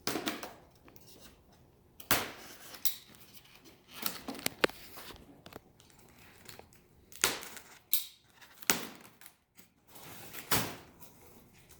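Cardboard box and packing material being handled while parts are lifted out of an RC airplane box: irregular rustling and scraping with several sharp knocks.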